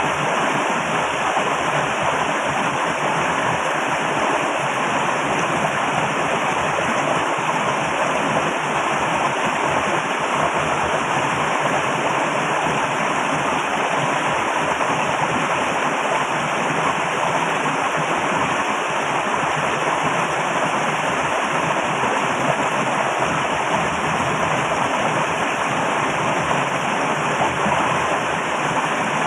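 Flowing water rushing loudly and steadily, a dense even splashing roar with no breaks or changes.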